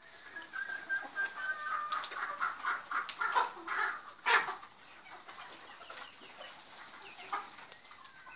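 A flock of three-month-old pullets clucking and peeping. The calls come thick and fast through the first half, with the loudest about four seconds in, then thin out to scattered calls.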